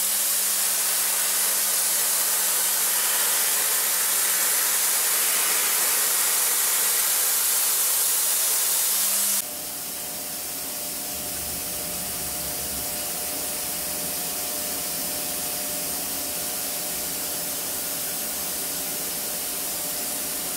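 DMG MORI CMX1100V vertical machining center high-speed milling with an end mill: a loud, steady spray-like hiss over a steady low hum. About nine seconds in, the sound cuts abruptly to a quieter, steady machine hum carrying a few level tones.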